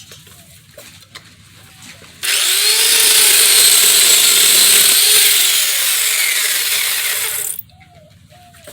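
Chainsaw cutting through thick dead bush wood, the engine pitch wavering as the chain bites. It starts abruptly about two seconds in and cuts off about a second before the end, with birds chirping around it.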